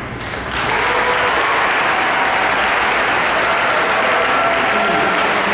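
Crowd applauding, breaking out about half a second in and holding steady.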